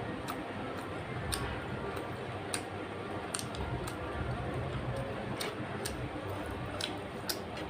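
Close-up eating sounds: chewing with sharp, irregular mouth clicks and smacks every half second to a second, over a steady low hum.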